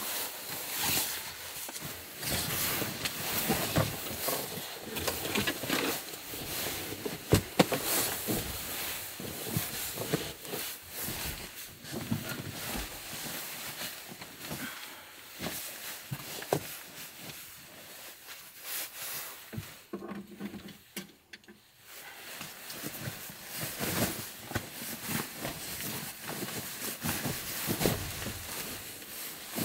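Close-up handling noises: irregular rustling, scraping and light knocks of objects being moved and worked by hand, with a brief lull about two-thirds of the way through.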